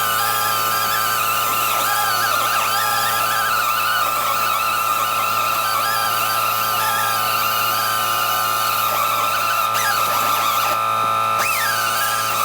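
Pneumatic air sander with an abrasive pad, running continuously against steel. Its high whine wavers up and down in pitch as the pad is pressed and moved over the metal.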